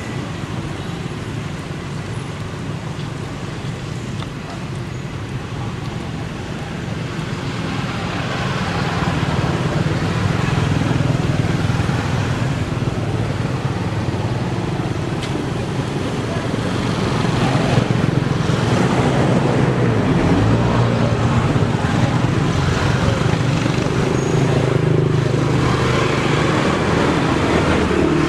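Steady rumble of road traffic, louder from about eight seconds in and louder again in the second half.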